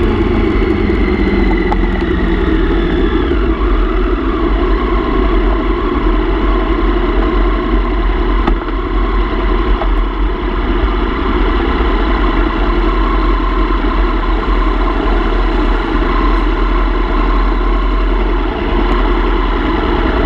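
Motorcycle engine running at low speed. Its pitch falls over the first few seconds as the bike slows, then it runs steadily near idle.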